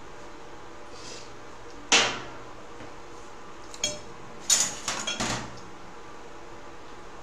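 Metal kitchen utensils clanking: one sharp clatter about two seconds in, then a ringing tap and a quick run of clanks a couple of seconds later. Under them, a steady hiss from oil deep-frying.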